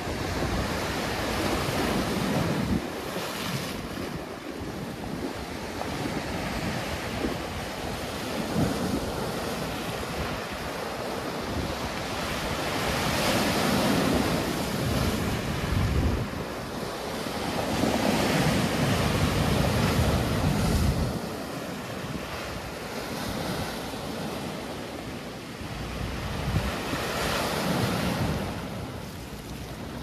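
Big sea waves breaking and washing onto the shore, the surf swelling and fading every several seconds, with wind buffeting the microphone.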